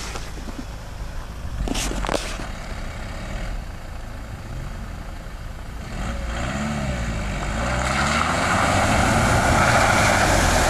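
Off-road 4x4 SUV driving along a dirt track toward and past the microphone: its engine revs up and down about six seconds in, then engine and tyres on loose dirt grow loud as it passes close near the end.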